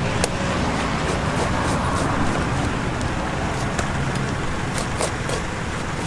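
Steady street noise, a traffic-like hum with a constant hiss, broken by a few sharp clicks.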